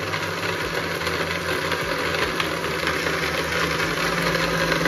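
Electric countertop blender running steadily at speed, its motor humming as it blends avocado with milk and sugar into a milkshake.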